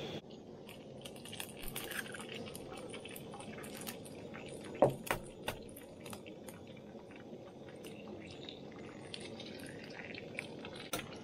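Bacon sizzling and popping in a frying pan, a steady crackle with scattered spits and pops; one sharper click about five seconds in.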